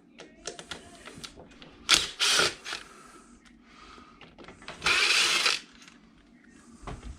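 Hand tools and small metal engine parts clicking and clattering during an engine teardown, with two louder rushing noises about two and five seconds in, the second lasting about half a second.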